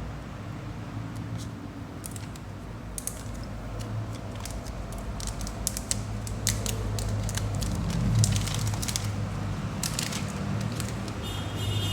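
Crinkling and crackling of a parcel's plastic wrapping and tape being handled, in many short irregular crackles, over a steady low traffic hum.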